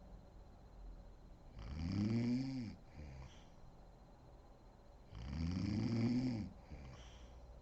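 A woman snoring: two long snores about three and a half seconds apart, each rising and then falling in pitch, and each followed by a short breathy exhale.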